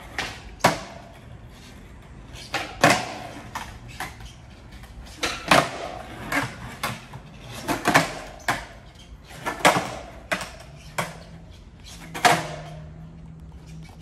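Skateboard on a concrete floor: a string of sharp wooden clacks from the tail popping and the board landing, often in quick pairs, each with a short echo off the concrete walls of an underground parking garage.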